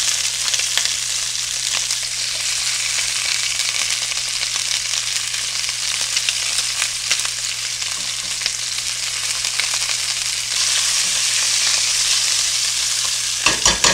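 Mild Italian sausages searing in hot oil in a large skillet over medium-high heat, a steady sizzle with small crackles as they are browned on all sides. The sizzle grows louder about ten seconds in, and a few sharp knocks come near the end.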